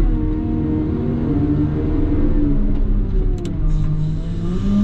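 CAT loader's diesel engine running under load, its pitch rising and falling as the revs change while it works snow.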